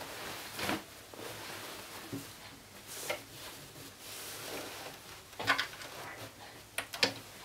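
Faint rustling of a gathered skirt being handled and spread out, with a few sharp clicks and knocks, the loudest about five and a half seconds in.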